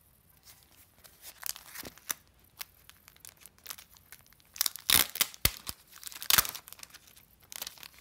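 Clear plastic wrapping on a postcard set being torn open and crinkled by hand, in sharp crackling rustles that grow denser and loudest about five seconds in.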